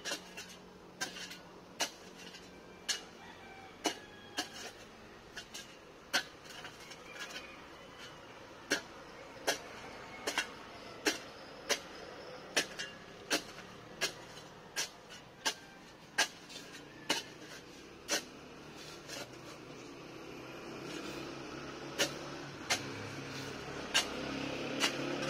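A hand digging tool striking hard, dry ground over and over, a sharp knock about every three-quarters of a second, as a foundation trench is dug by hand. A steady background noise swells in the last few seconds.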